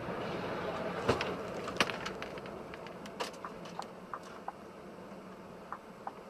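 Steady road and cabin noise from the dashcam vehicle driving on a motorway, with scattered sharp clicks and ticks; the two loudest come about one and two seconds in.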